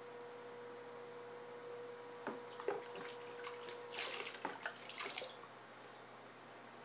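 Wet splashing and dripping for about three seconds, starting a little over two seconds in, as the potter's hands are wetted in water and go back onto the slippery clay. Under it runs the steady hum of the electric pottery wheel's motor, which fades about halfway through.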